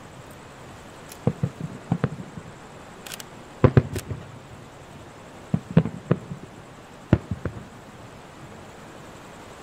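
Aerial firework shells bursting: about ten sharp bangs in quick clusters of two or three, the last of them about seven and a half seconds in.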